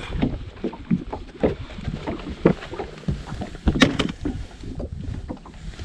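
Irregular knocks, bumps and clicks of handling on a fishing boat, over a low rumble, with the sharpest knocks about two and a half and nearly four seconds in.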